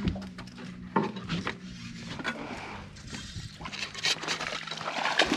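Scattered knocks, clicks and rattles of fishing gear being handled in a boat while a landing net is fetched, with a steady low hum that fades out about halfway through.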